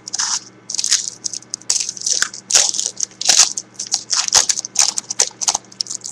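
Foil wrapper of a trading-card pack crinkling and tearing as it is opened by hand, in a quick, irregular series of crackly rustles.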